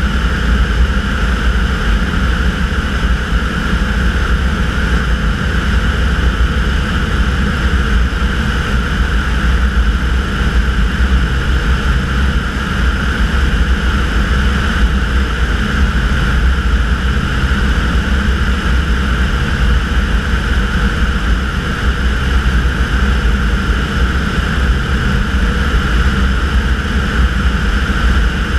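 Tanarg microlight trike's engine and pusher propeller droning steadily in cruise flight, with wind rushing over the wing-mounted microphone.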